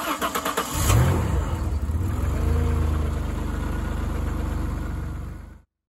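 Car engine cranking with quick even strokes, catching about a second in with a brief rise in revs, then idling steadily before fading out near the end.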